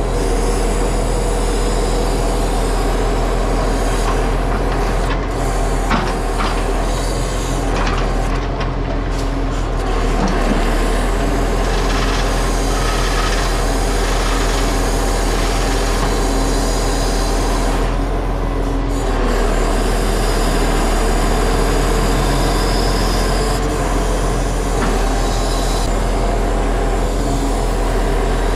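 Timber truck's engine running steadily while its loading crane handles logs, with wood knocking and scraping against wood. The knocks are sharpest in the first several seconds.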